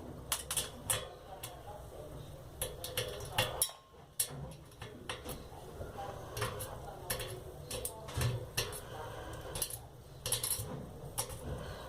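Small steel bearing balls and parts of a disassembled bicycle freewheel clinking as the balls are picked out: irregular light metallic clicks and taps.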